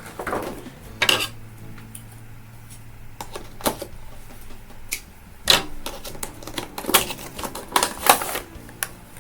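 An action figure's cardboard box and plastic packaging being opened and handled: irregular sharp clicks and short rustles, busiest in the second half.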